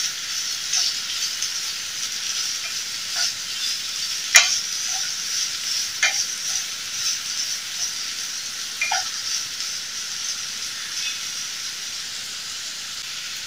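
Shredded cabbage, capsicum and carrot sizzling in oil in a nonstick pan as they are stir-fried, with a wooden spatula tossing them and knocking against the pan a few times, the sharpest knock about four seconds in.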